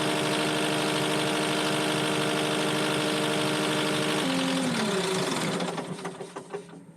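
Skid steer loader engine running steadily, then about four seconds in its speed drops with a falling pitch and the sound dies away near the end, as when the machine is throttled down and shut off.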